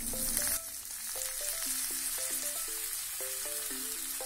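Fresh curry leaves sizzling in hot oil with mustard seeds and garlic in a steel kadhai, the sizzle loudest in the first half-second as the leaves hit the oil and then settling to a steady hiss. A simple background melody plays alongside.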